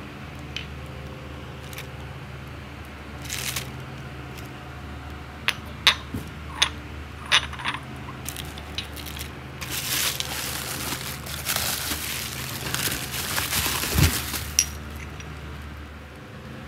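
Handling noises over a steady low hum: a run of sharp clinks and taps, like small hard objects or dishes being set down, then several seconds of rustling with a thump near the end.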